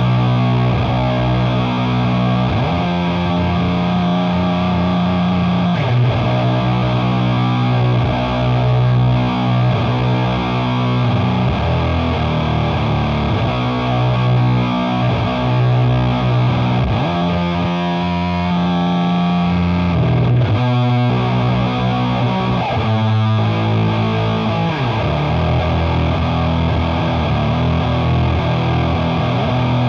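Electric guitar through a Doomsaw HM-2-style chainsaw distortion pedal and a Matamp amp, playing heavily distorted, slow, sustained low chords. About two-thirds of the way through there is a few-second run of fast picked chugging.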